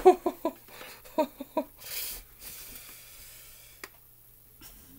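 Short, quick bursts of a person's voice over the first second and a half, then a breathy burst of noise about two seconds in and a faint click near the end.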